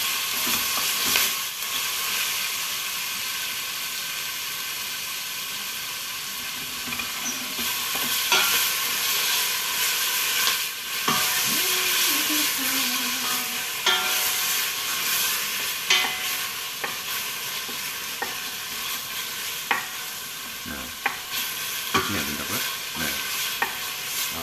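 Kimchi and minced garlic frying in sunflower oil in a pot, a steady sizzle, while a utensil is stirred through it and clicks against the pot every second or two.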